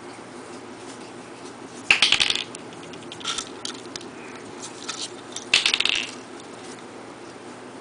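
Small hard plastic Lego pieces clicking and rattling as they are handled and pressed onto a toy vehicle. There are two bursts of rapid clicks, about two seconds in and again past five seconds, with a fainter one in between.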